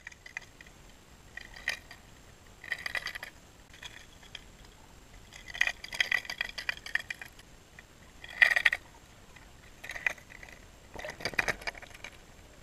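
Irregular clusters of fast clicking and clinking, heard through a camera underwater, coming in short bursts about every second or two.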